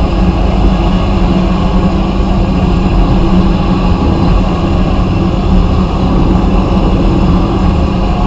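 Abrasive blasting cabinet running steadily while engine parts are blasted: a loud, even blast noise over a steady machine hum.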